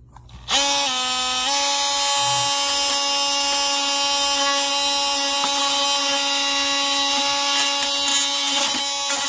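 Cordless DeWalt XR oscillating multi-tool starting up about half a second in and running steadily as its blade cuts an opening into a fiberglass boat's side: an even, high buzzing whine that shifts slightly in pitch about a second and a half in.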